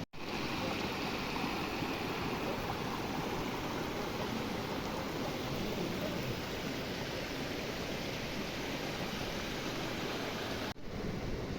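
Steady rushing noise like a flowing stream, with no distinct crackles or clicks, dropping out briefly twice, just after the start and near the end.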